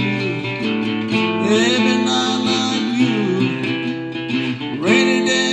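Acoustic guitar strumming chords in an instrumental passage between sung lines.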